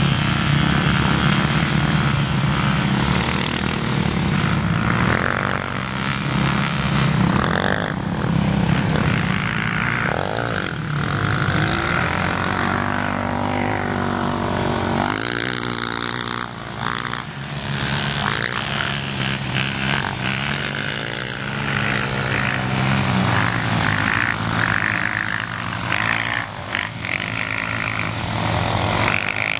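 Quad (ATV) engines running: a steady engine drone whose pitch rises and falls as the riders throttle up and back off.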